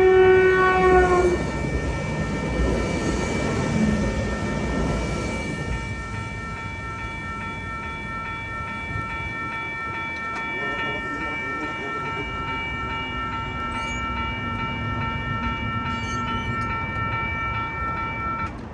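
A passenger train sounds its horn, which ends about a second in, then rumbles through the crossing while the crossing's electronic bell rings on steadily. The rumble fades over the first six seconds, and the electronic bell cuts off just before the end as the crossing clears and the gate arm is raised.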